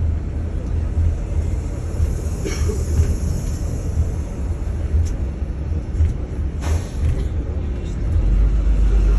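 Airport apron bus driving, heard from inside the cabin: a steady low engine and road rumble with a few short rattles and knocks, the rumble getting heavier near the end.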